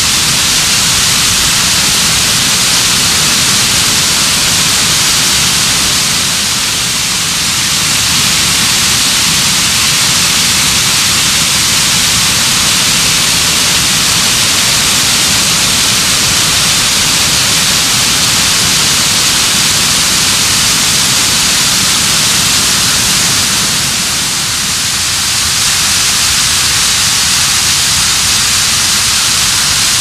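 Waterfall cascading over boulders: a loud, steady rush of falling and splashing water, dipping slightly twice.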